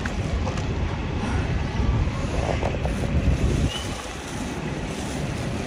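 Wind buffeting a handheld phone's microphone, a steady low rumble, over the noise of city street traffic.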